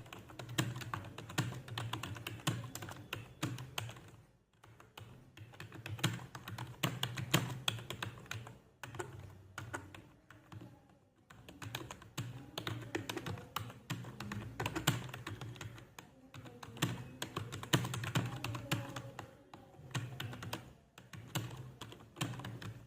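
Fast typing on a computer keyboard: a dense run of keystroke clicks with a few short pauses, as in a timed typing test.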